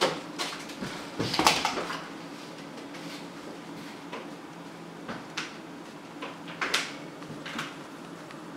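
A few knocks and rustles of kitchen handling: a refrigerator door being shut and food packages set down on a countertop, the loudest knock about a second and a half in.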